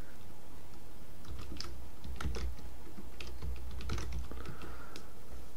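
Typing on a computer keyboard: scattered, irregular keystrokes while a username and password are entered.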